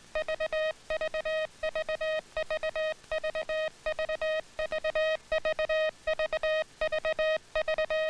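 Morse code sent by hand on a field telegraph key clamped to the leg: a single buzzy tone keyed on and off in quick dits and dahs. It comes in short, evenly spaced groups, a little more than one group a second.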